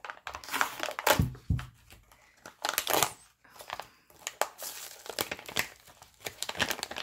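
Thin plastic bag crinkling and rustling in irregular crackles as it is slit with a knife and pulled open by hand.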